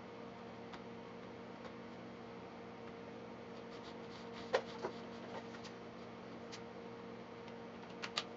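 Light plastic clicks and ticks as the links of a plastic cable drag chain are handled while a cable is fished through it, the sharpest two about halfway through and a quick pair near the end, over a faint steady hum.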